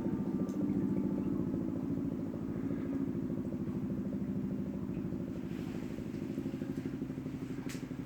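Civil-defence warning siren sounding a low, pulsing drone that slowly gets quieter, as at the tail of a test alarm; the pulsing grows clearer in the second half.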